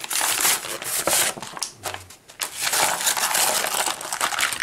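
Cardboard-backed plastic blister pack being torn open by hand: cardboard ripping and plastic crackling in two long spells with a short pause between.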